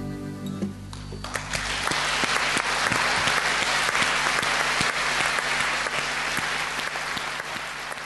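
Audience applauding after a song: the last acoustic guitar chord dies away, then about a second in the clapping starts and holds steady, easing slightly near the end.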